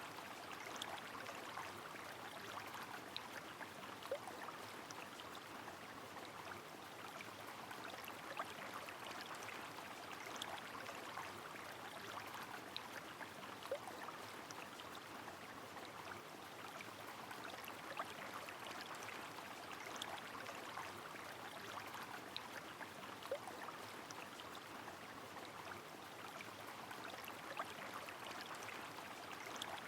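A river rushing steadily under falling rain, with scattered sharp drip and splash ticks over the even wash of water.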